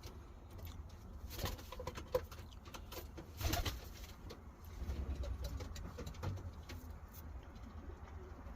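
Racing pigeons cooing in a loft, with scattered clicks and shuffling.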